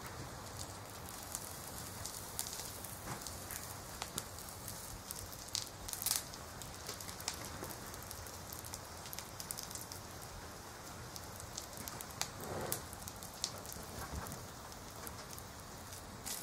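Pork belly sizzling on a wire grill over burning charcoal: a steady hiss with scattered sharp crackles and pops from the fire, a few louder ones about six seconds in.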